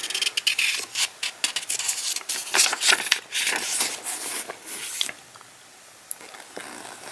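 Paper pages of a small printed user manual rustling and being turned by hand: a run of crisp crackles and brushing sounds for about five seconds, then only a few faint rustles.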